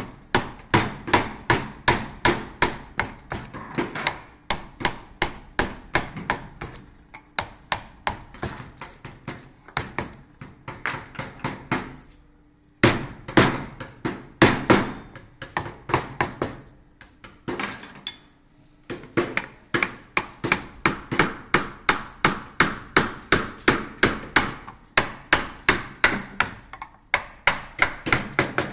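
Mallet striking the handle of a carving gouge as it cuts into a wooden chair leg: a steady run of sharp wooden knocks, about two to three a second, with a short break about halfway through.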